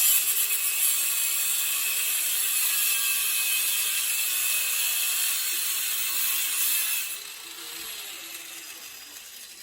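Angle grinder cutting through metal with a steady high whine, released about seven seconds in and spinning down with a falling pitch.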